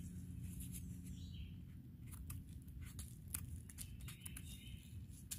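Faint, scattered small clicks and crackles of a bitter bolete mushroom being handled and broken apart by hand.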